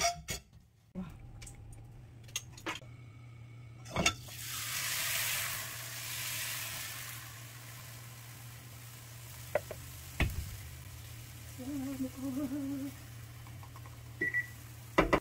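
Frying pan with hot oil sizzling: a burst of hissing about four seconds in that swells and then slowly fades, with a few sharp clinks of utensils and dishes and a steady low hum underneath.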